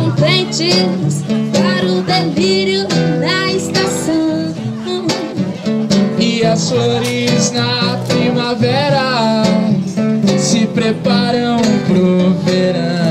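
Live acoustic guitar music in a passage without lyrics: chords under a lead melody line whose notes slide and bend.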